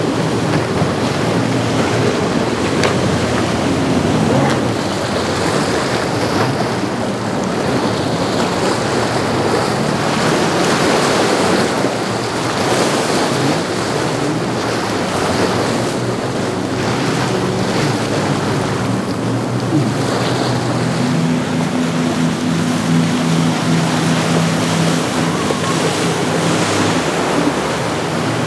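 Motor yachts running past at speed: a steady rush of hull spray, wake and surf, with wind on the microphone. A low engine drone comes through over the last several seconds.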